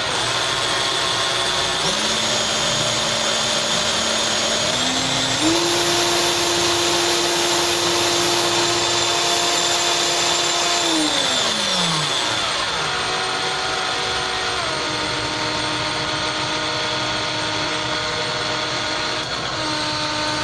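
National EZ6813 29.4 V cordless drill running with no load in its high-speed range, its motor whine stepping up in pitch over the first few seconds, holding steady, then gliding down about twelve seconds in and settling lower as the variable-speed trigger is eased.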